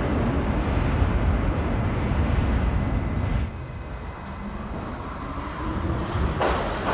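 Subway train rumble echoing through an underground station; it drops off abruptly about halfway through, then a second train can be heard approaching, its low rumble building with a faint rising whine as it nears the platform.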